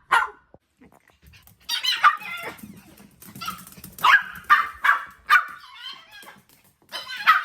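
Pet dog barking in short, sharp barks, in clusters: one at the start, two near two seconds, four in quick succession around the middle, and one more near the end.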